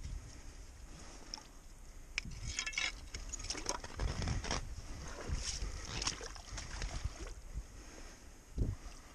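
Hands sloshing and splashing in shallow muddy water while a steel trap chain and trap clink and rattle, with a burst of chain jingle about two and a half seconds in.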